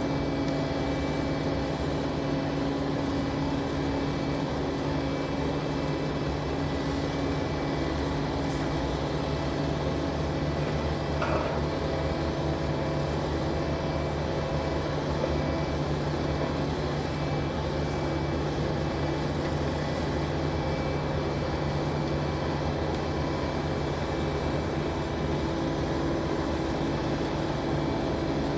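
Large crawler crane's diesel engine running steadily, a low even hum with no change in pitch, while the crane holds a concrete wall panel on its hook.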